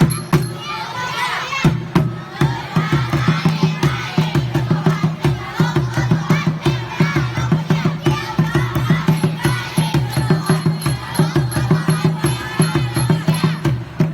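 A crowd of children shouting and cheering over a fast, steady drumbeat.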